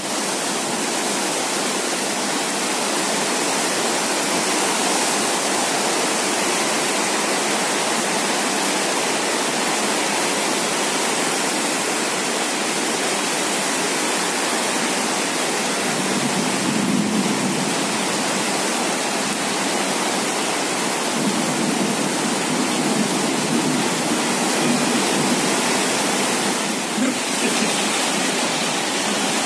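Heavy rain falling on tiled roofs: a steady, dense hiss of the downpour.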